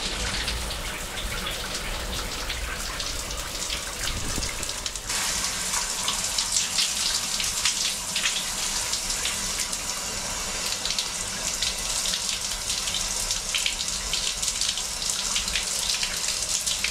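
Overhead shower head spraying water in a steady hiss onto a cement floor; from about five seconds in the spray turns brighter and more spattering as it falls on a person's hand and body.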